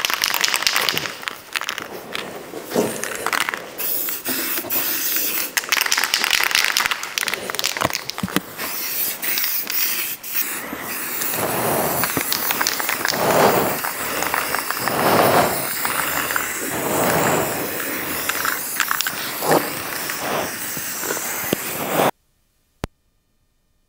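Aerosol spray paint can hissing in repeated bursts of spraying; the hiss cuts off suddenly near the end.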